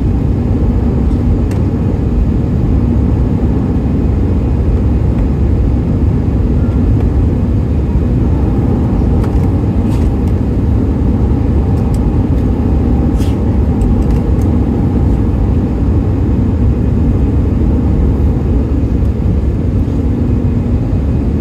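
Steady cabin roar of an Airbus A320 in flight shortly after takeoff, heard from a seat by the wing: the jet engines and the rush of air over the fuselage. It holds at an even, loud level, with a few faint ticks around the middle.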